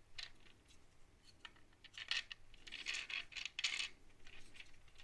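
Faint metallic clicks and clinks of long stainless steel screws shifting in the holes of a 3D-printed plastic motor cooler as it is handled, in a few scattered clusters.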